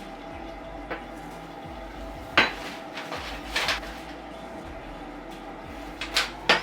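Small metal clinks and knocks as toilet flange bolts, washers and a nut are handled and fitted at the floor flange, with about seven sharp clicks, the loudest about two and a half seconds in and several close together near the end, over a faint steady hum.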